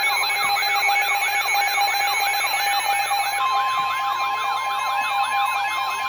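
Weather radio alert alarms sounding together: a siren-like warble that rises and falls about three times a second over steady tones. A steady tone near 1 kHz joins about halfway through. It signals an incoming severe thunderstorm warning.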